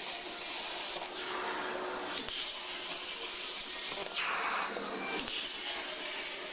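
CNC plasma cutter's torch cutting steel: a steady rushing hiss, with a brighter, harsher stretch about four seconds in.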